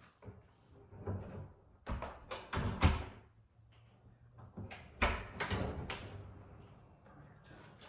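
Irregular wooden knocks, thuds and scrapes of a door being handled and fitted by hand, the hardest knock about three seconds in and another cluster around five seconds.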